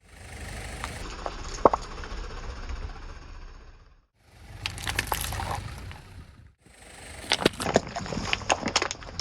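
Car tyre rolling over objects and crushing them: a low rumble with sharp cracks and crunches, in three short takes cut apart by brief silences. The cracking comes thickest near the end.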